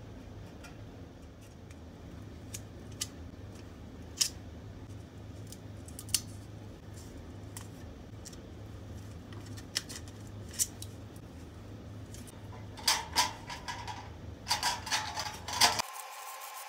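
Thin sheet-metal ring handled by hand: a few sharp metallic clicks and taps, then a flurry of clinks near the end as it is set down on a steel table, leaving a brief ringing tone. A steady low hum runs underneath.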